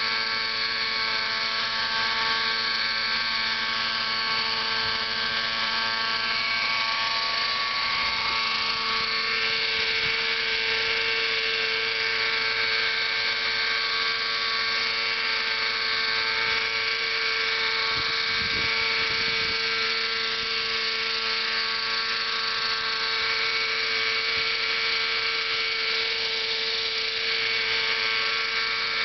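Nitro RC helicopter's small two-stroke glow engine running at steady high revs while the model hovers: a steady high-pitched buzz that holds the same pitch throughout.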